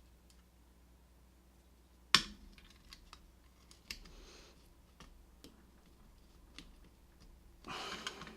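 Small metal clicks and taps from a pin-tumbler lock being taken apart with hand tools, with one sharp click about two seconds in and a short scraping rattle near the end.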